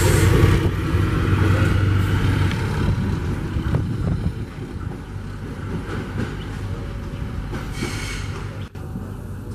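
A self-propelled KUJR track-inspection railcar moving away along the track. Its engine hum and rail rumble are loud at first, then fade about four to five seconds in as it draws off.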